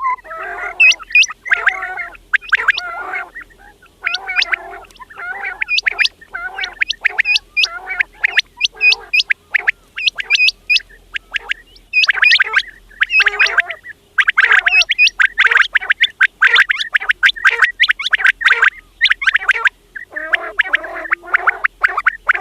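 Quails calling: quick runs of short, sharp, upward-flicking notes repeated again and again with brief pauses between runs, mixed with lower, rougher notes.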